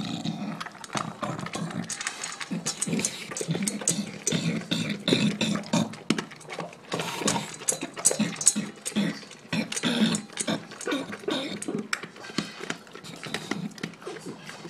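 English bulldog wolfing down his dinner from a bowl, close up: fast, irregular chomping, smacking and gulping.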